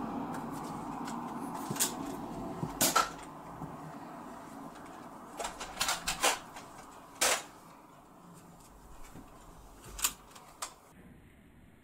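Sharp plastic clicks of a small orange Nerf dart blaster being loaded with a foam dart and worked, coming singly and in close pairs every second or two.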